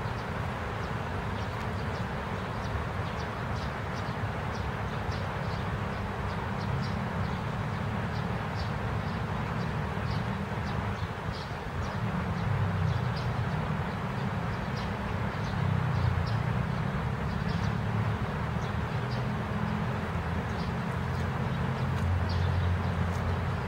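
Steady rain falling, an even hiss, with a low rumble underneath that swells a few times and short high-pitched ticks scattered throughout.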